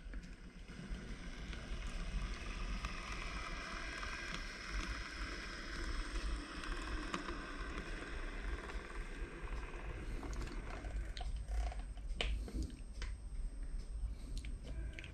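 Minitrix N-scale model of a V 160 pre-series diesel locomotive running past on its track: a whirring running noise that builds and then fades. A few sharp clicks follow near the end.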